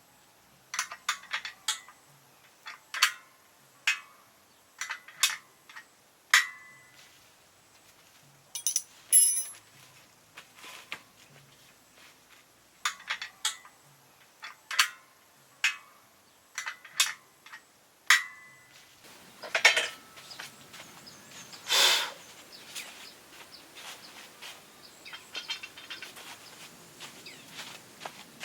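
Irregular sharp clinks and knocks, some ringing briefly. After about two-thirds of the way through they give way to a rustling, scraping noise with two louder strokes.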